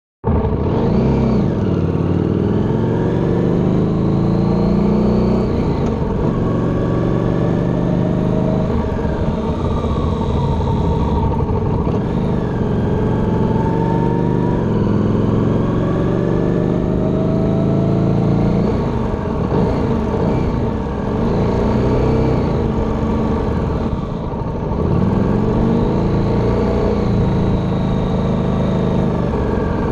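Harley-Davidson V-twin motorcycle engine running under way, heard from the bike itself. Its pitch rises and falls back several times with the throttle.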